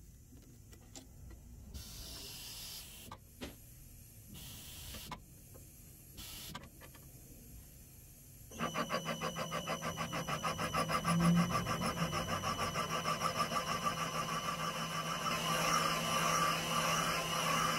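A few light clicks and knocks as the valve seat machine's cutter is set over a valve guide in a John Deere 6068 cast iron cylinder head. About halfway through, the cutter's motor starts and runs steadily with a rapid regular pulsing as the cutter turns in the valve seat.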